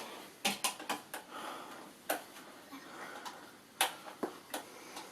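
Scattered sharp clicks and knocks of hard plastic parts being handled and fitted together while a toy shop playset is assembled, a quick cluster in the first second and a few single knocks after.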